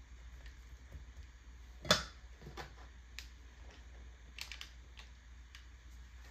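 Light clicks and soft rustles of rubber kitchen tongs setting shredded chicken onto a flour tortilla, with one sharper click about two seconds in.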